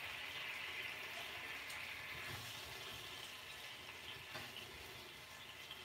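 Faint, steady sizzle of hot oil and browned garlic in a copper skillet as cream of chicken soup is scraped in from the can, slowly dying down, with a few soft scrapes of a silicone spatula.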